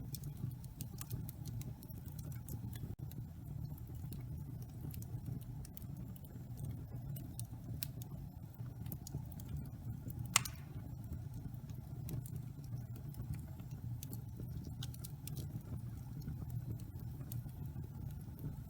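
Wood fire burning in a fireplace: a steady low rumble with scattered small crackles, and one louder pop about ten seconds in.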